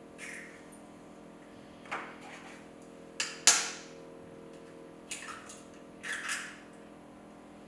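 Eggs being cracked with a knife over a Thermomix mixing bowl: several sharp taps of the blade on the shells as they break, the loudest about three and a half seconds in. A steady low hum runs underneath.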